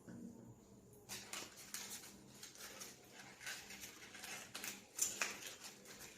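Faint rustling and light taps of paper being handled and pressed flat by hand while gluing, irregular, starting about a second in.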